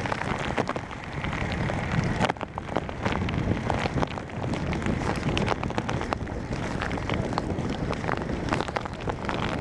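Strong wind near a violent tornado buffeting the microphone: a dense, steady rushing noise with many sharp ticks scattered through it from rain and small tree debris striking.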